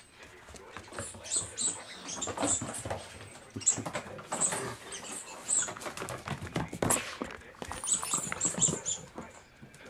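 A dog's claws pattering and skittering on a hard floor as it runs and plays, mixed with many short, high squeaks.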